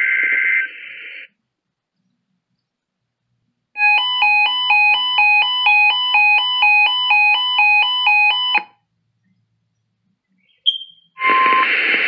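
Weather alert radio receiving a NOAA Weather Radio Required Weekly Test. The SAME digital header's raspy two-tone data burst ends about a second in. After a pause the receiver sounds a warbling electronic alert that alternates between two tones about three times a second for roughly five seconds. Near the end a short chirp sounds and the broadcast audio opens with hiss.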